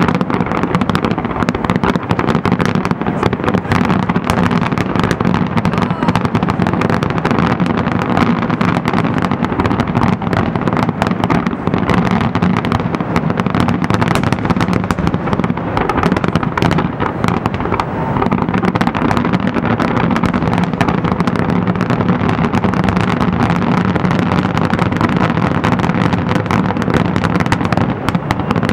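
Aerial fireworks display at its finale: many shells bursting at once in a dense, continuous barrage of bangs that doesn't let up.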